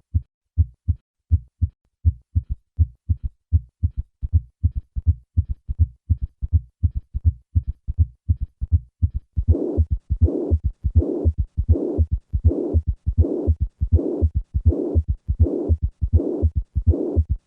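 Heart sounds at about 80 beats a minute: short, low thumps of the first and second heart sounds, with a third and then a fourth heart sound added to each beat. About halfway through, a murmur fills each systole. With the third and fourth sounds, it is the picture of acute mitral regurgitation from a ruptured chordae tendineae.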